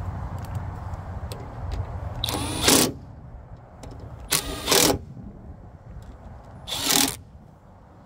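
Cordless power driver spinning a socket on an extension to tighten a bolt in a Toyota Camry door's latch edge, in three short bursts about two seconds apart.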